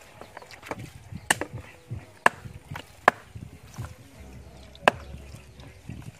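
Machete chopping raw chicken pieces on a wooden chopping block: a series of sharp chops at irregular intervals, roughly one a second, four of them much louder than the lighter taps between.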